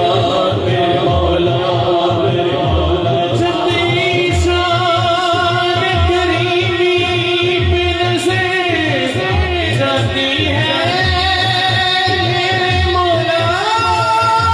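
Men's voices singing an Urdu hamd (devotional song in praise of God) in long, held, wavering notes, over a regular low pulse.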